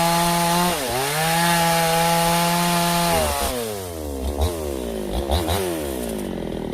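Stihl two-stroke chainsaw engine running at high revs, dipping briefly about a second in. A little after three seconds the throttle is released and the revs fall toward idle, with two short throttle blips near the end.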